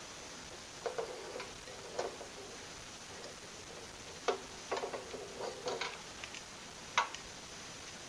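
A steel meat cleaver tapping on the hose connection of a gas regulator: a series of short, sharp, irregular taps with pauses between, the hose being tightened onto the regulator's outlet.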